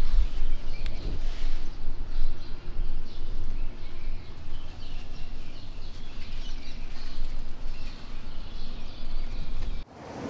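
Outdoor ambience: a low, uneven rumble on the microphone with birds chirping faintly in the background. It cuts off abruptly near the end.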